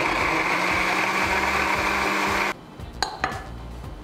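Electric blender running steadily, grinding shallots, garlic, turmeric, kencur and ground coriander with water into a spice paste; it stops abruptly about two and a half seconds in. A few faint clicks follow near the end.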